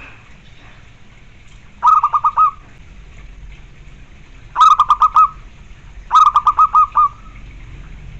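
Zebra dove cooing: three short runs of quick staccato coos, each a string of four to six clipped notes, a couple of seconds apart.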